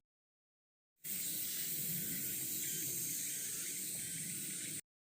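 Steady, even high-pitched hiss of insects droning in summer woodland, broken by dead dropouts of total silence at the start and again near the end.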